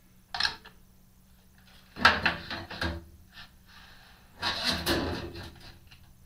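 A DRO linear scale's metal housing knocking and scraping against a milling machine's table as it is fitted into place. There is a short knock just after the start, then a longer clatter about two seconds in, and another about four and a half seconds in.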